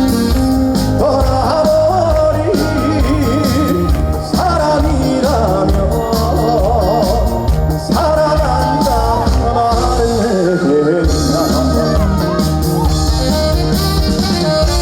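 Male trot vocalist singing live with vibrato over full band accompaniment with a steady beat.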